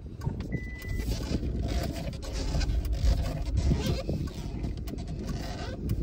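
A vehicle moving slowly along a dirt road: a low, uneven road and engine rumble with wind buffeting the microphone. A brief, steady high tone sounds under a second in.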